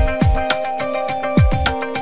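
Background music with a beat: sustained notes over repeated deep bass hits that drop in pitch.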